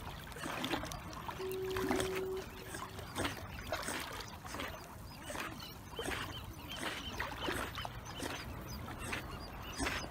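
Water sloshing and splashing close to the microphone around a swimming dog, in repeated strokes roughly a second apart. A short steady tone sounds briefly about a second and a half in.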